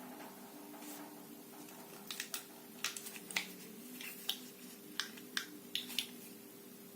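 A series of sharp, irregular clicks, about a dozen, starting about two seconds in, over a steady faint hum.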